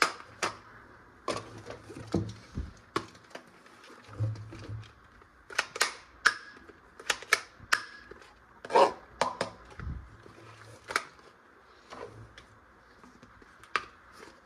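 Irregular sharp clicks and light knocks of hard plastic toy gun parts being handled.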